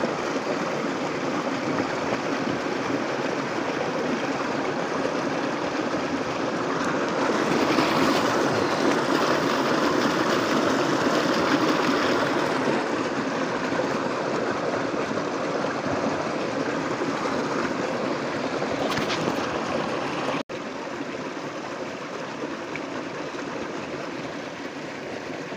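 Shallow rocky stream flowing, a steady rush of water that swells louder for a few seconds in the middle. It cuts out for an instant about twenty seconds in.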